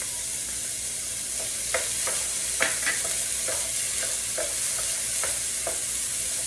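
Chopped peas, carrots and onions sizzling in an electric skillet. A wooden slotted spatula stirs them, scraping and tapping against the pan about a dozen times from about a second and a half in.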